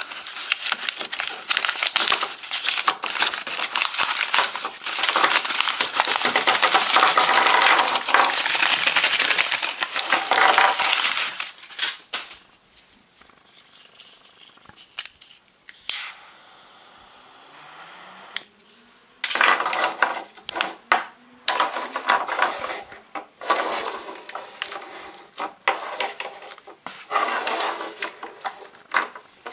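Paper packaging crinkling and tearing as a parcel is unwrapped, dense and continuous for the first ten seconds or so. After a quieter stretch, hands handle plastic jet torch lighters, with intermittent rustling and small hard clicks and clatters against the wooden desk.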